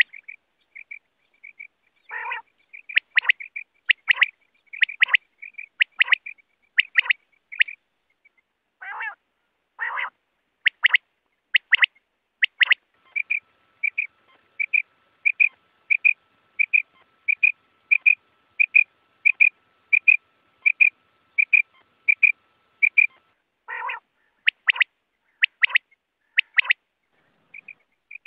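Quail calling: a quick run of short, high calls, a few of them louder and fuller, then a long even series of repeated calls at about one and a half a second before the louder calls return near the end.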